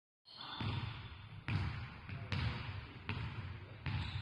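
Sharp thuds, about one every 0.8 seconds, each with a deep thump and echoing in a large sports hall.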